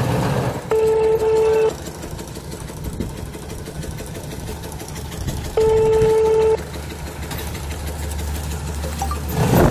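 Mobile phone ringback tone heard over a phone's speaker: two steady one-second rings about five seconds apart, with the call going unanswered. A low rumble runs underneath, and a short rush of noise comes near the end.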